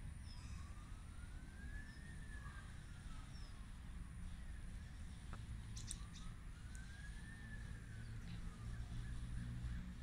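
Emergency vehicle siren wailing faintly, its pitch rising slowly and falling again twice, each rise and fall taking about three and a half seconds.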